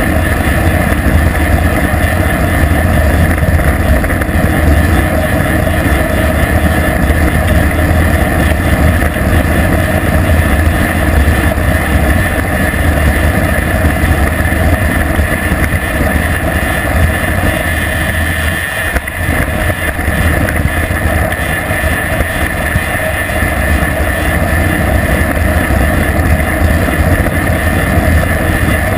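Wind buffeting the microphone of a bike-mounted action camera during a fast downhill bicycle ride: a steady, loud rumble and rush, mixed with tyre and road noise. It eases briefly about two-thirds of the way through.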